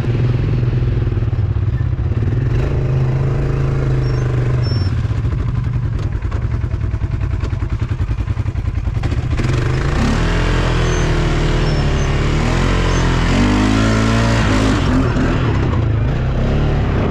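Off-road vehicle engine running at low revs, then revving with a wavering pitch from about ten seconds in.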